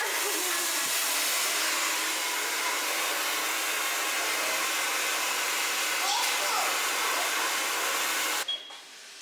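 Handheld hair dryer running steadily during a blow-dry, switched off suddenly near the end.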